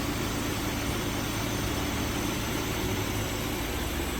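Honda Prelude engine running steadily, heard from inside the cabin with the air conditioning blowing.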